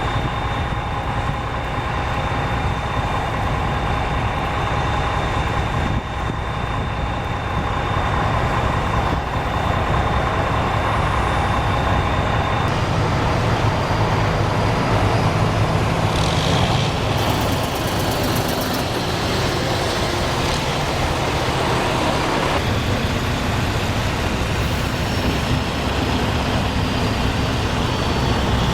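Steady vehicle and road noise from driving in heavy traffic, a continuous low rumble, with a thin steady whine that cuts off about halfway through.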